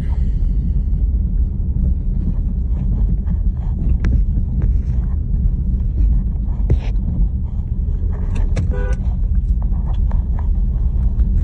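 Car engine and tyre noise heard from inside the cabin, a steady low rumble, with scattered faint clicks. About nine seconds in comes one short pitched tone.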